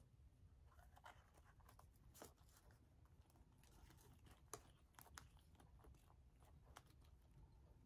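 Near silence with faint, scattered rustles and small clicks from handling: pine sprigs and twine being tucked around a stuffed muslin snowman.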